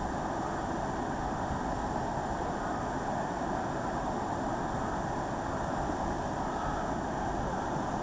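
Steady rush of a waterfall, water pouring over rocks and churning in the pool below.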